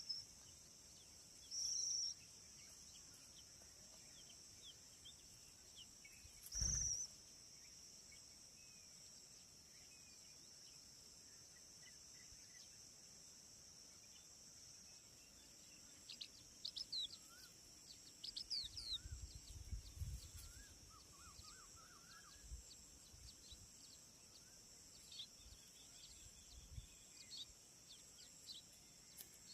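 Steady high-pitched insect drone with a few scattered bird chirps. A little over halfway in, a flurry of quick high chirps starts, with a few soft low thumps among them.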